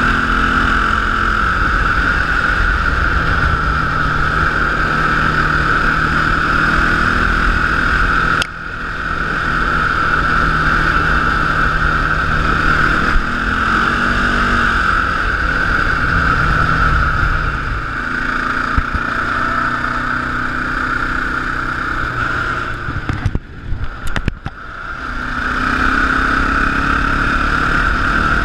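Sport quad (ATV) engine running under throttle while riding, mixed with wind rush. The engine note shifts up and down with the throttle. The sound drops sharply about eight seconds in, and again in a choppy way about twenty-three seconds in, before building back up.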